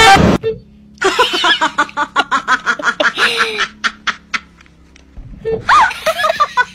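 A person laughing hard in quick, chopped bursts of giggles, over a low steady hum. A short loud cry comes right at the start.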